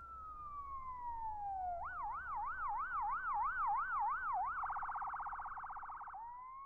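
Ambulance siren sound effect. It starts with a falling wail, changes about two seconds in to a wail swinging up and down about three to four times a second, then to a much faster yelp, and starts rising again near the end. It grows louder, then fades.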